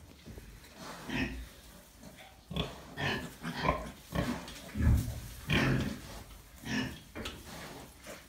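Pigs grunting: a Gloucester Old Spot sow and her newborn piglets make a series of short grunts, loudest and closest together in the middle of the stretch.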